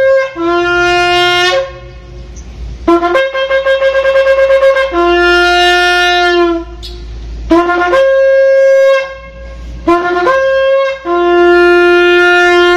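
Long spiralled animal-horn shofar blown in several long blasts. Each blast steps between a low note and a higher note, with short breaths between blasts.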